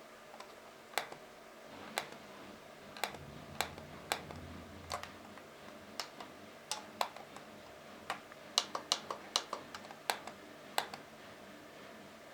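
Small pushbuttons clicked one at a time at an irregular pace, about one press a second, with a quicker run of clicks about two-thirds of the way through.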